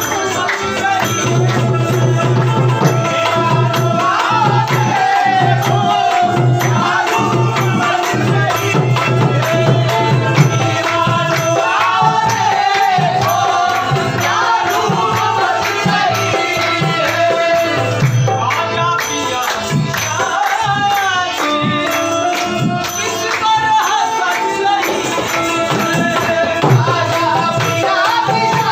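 A devotional qawwali sung to harmonium and tabla: a voice carries a wavering melody over the harmonium's held notes, and the tabla and jingling hand percussion keep a steady beat.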